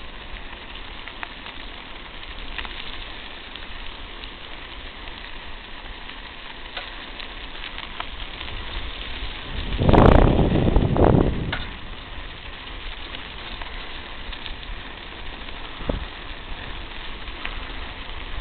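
Vehicle tyres rolling over a dirt and gravel road bed, a steady crackling noise with scattered small clicks of stones. About ten seconds in, a loud rough rush of noise lasts about a second and a half.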